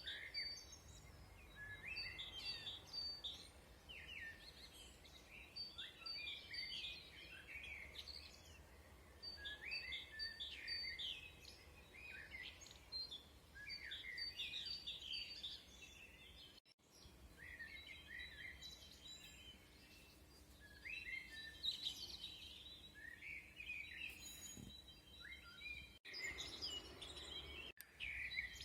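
Birdsong: short phrases of quick rising and falling chirps, repeated about every two seconds over a faint steady low hum. The sound cuts out briefly a few times in the second half.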